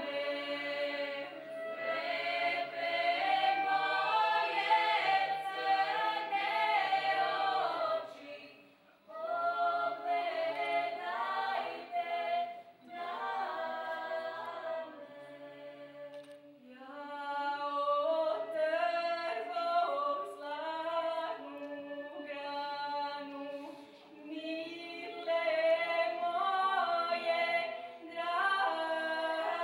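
Unaccompanied mixed choir singing, with a female lead voice at the microphone over male and female voices. The singing comes in phrases, with short breaks about nine seconds in and again near sixteen seconds.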